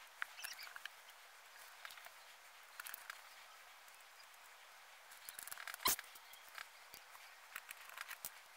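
Faint clicks and light scrapes of a small screwdriver and hands working on a graphics card's plastic fan shroud, with one sharper click about six seconds in.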